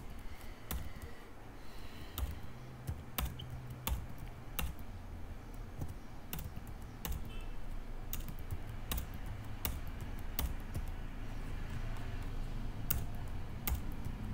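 Computer keyboard typing: irregular keystrokes, about one or two a second, as matrix entries are typed one after another, over a low steady hum.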